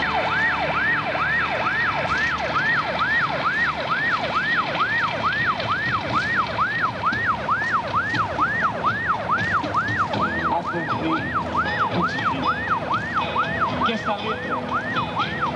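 Electronic siren in a fast yelp, sweeping up and down in pitch about twice a second without a break.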